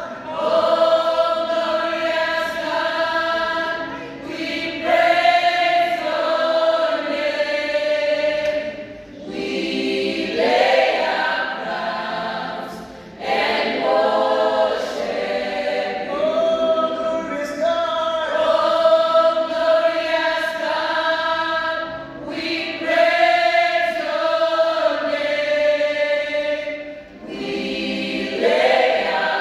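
A choir singing a cappella in several voice parts, held notes in phrases of a few seconds with brief breaths between them: a rehearsal run of a gospel piece.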